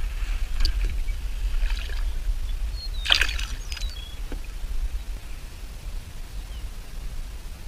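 A largemouth bass splashing back into the water beside a kayak as it is released, about three seconds in, with a couple of smaller splashing or handling sounds before it. Steady wind rumble on the microphone throughout.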